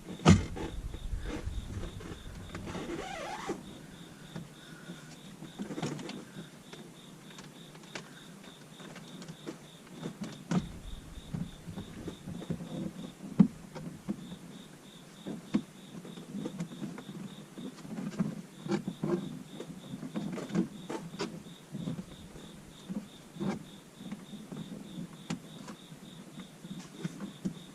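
Handling noise from tucking a power cable behind a car's plastic interior trim: scattered clicks, taps and rustles of wire against plastic panels, with a few sharper knocks. A faint high-pitched tone pulses evenly, several times a second, under most of it.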